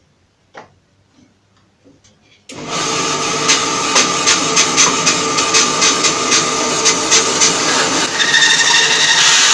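Bandsaw cutting through a block of firewood log, starting suddenly about two and a half seconds in after a few faint knocks. It runs steadily with clicks about three times a second, and its tone changes near the end.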